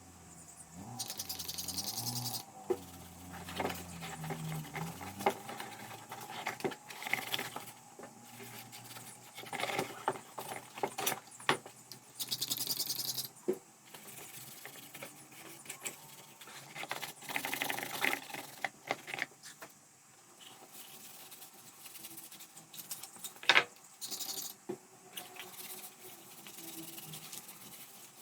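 Small metal parts and hand tools clinking, tapping and scraping during repair work on a portable pressure washer, with a few short hissing scrapes.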